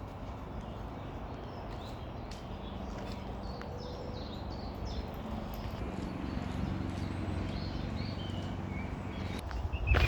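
Small birds chirping and calling again and again over a steady low rumble, with occasional footsteps on the path.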